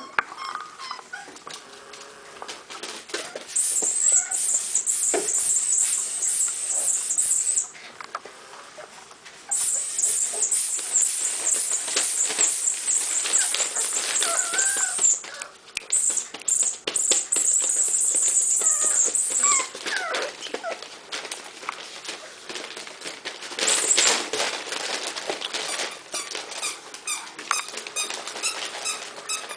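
Young boxer puppies playing, with short whimpers and yips and the scuffle and patter of paws and toys. Through much of it runs a loud high-pitched hiss or chirring that starts and stops in stretches of several seconds.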